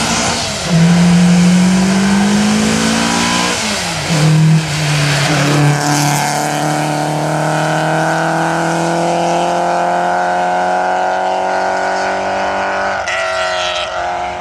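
Renault 5 rally car accelerating hard uphill, its engine revving up through the gears. Two quick shifts come in the first few seconds, then one long, slowly rising pull as the car goes away, with a brief break near the end.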